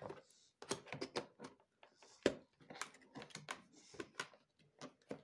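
Scissors snipping through the cardboard of an advent calendar door: a run of irregular sharp clicks and crunches, the sharpest about two seconds in, with brief rustles of card between them.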